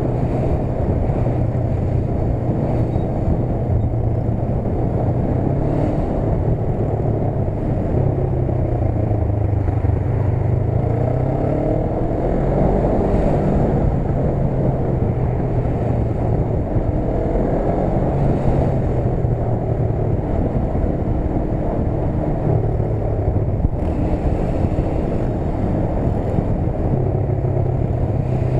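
Motorcycle engine running at low speed in slow traffic, its pitch rising and falling a couple of times around the middle as the throttle is opened and closed.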